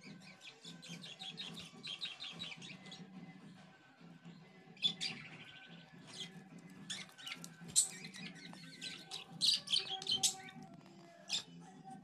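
Budgerigars chirping and chattering: rapid runs of short, high chirps, then several sharper, louder calls in the second half.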